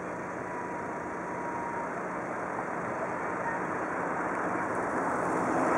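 The four CFM56 turbofan engines of an Airbus A340-300 airliner climbing away after takeoff: a steady jet rumble that slowly grows louder toward the end.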